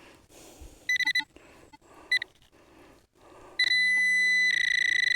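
Metal-detecting pinpointer probe signalling a target in the dug soil: a few short high chirps, then a steady high tone that turns louder and rapidly pulsing as it closes on the target, with a low vibrating buzz beneath.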